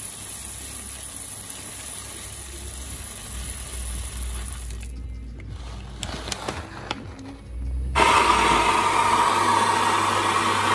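Roasted coffee beans pouring from a paper bag into a plastic grinder hopper with a steady rattling hiss, then a few light clicks. About eight seconds in, an electric espresso grinder starts and runs steadily, grinding into the portafilter.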